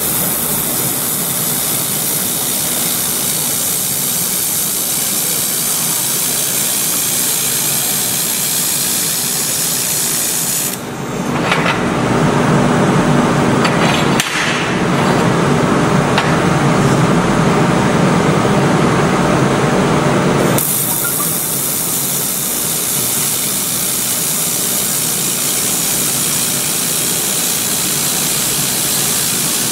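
Handheld fiber laser welder running along a joint in thick metal plate: a steady, loud hissing crackle of the weld and its spatter. From about 11 to 20 seconds in the sound changes to a duller, lower steady noise.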